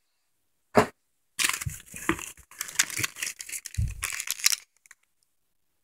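Plastic snack wrapper and brown paper packing crinkling and rustling for about three seconds as the next item is pulled out of the box. There is a single sharp knock before it and a soft thump near the end.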